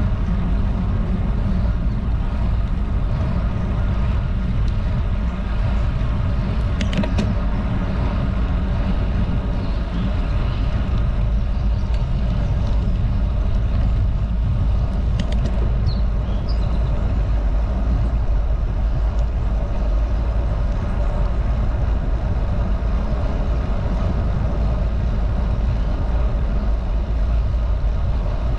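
Steady rush of wind buffeting a bike-mounted camera's microphone, with tyre noise from a road bicycle riding at about 12 to 17 mph. There are a couple of brief clicks about seven and fifteen seconds in.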